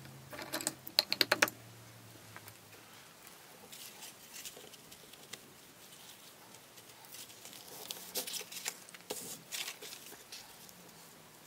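Hands handling paper pieces, small jars and a glue brush on a work table: a quick run of sharp clicks and taps in the first second and a half, then faint rustling and scattered light taps, busier again around eight to ten seconds in.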